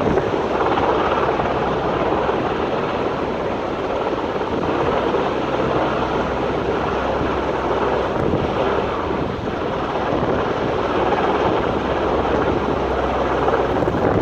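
Helicopter running steadily, mixed with wind buffeting the microphone.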